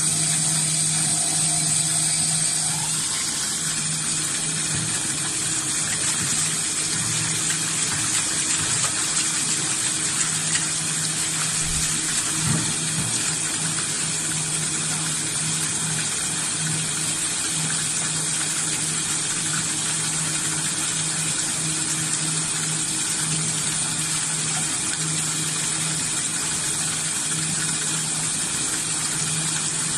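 Tap water pouring steadily into a tub of water and splashing, with a steady low hum underneath.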